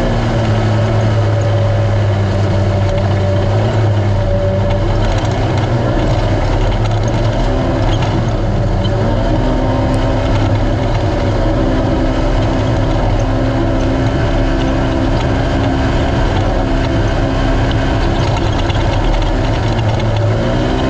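Naturally aspirated race UTV engine running hard at a mostly steady pitch, dipping and coming back up several times a few seconds in and again near the end as the throttle is eased and reapplied, over the steady rush of the run.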